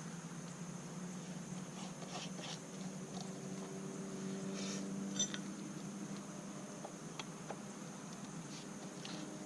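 A few faint, sharp clicks and taps of plastic trimmer-head parts being handled and fitted together, the clearest about five seconds in, over a steady low hum.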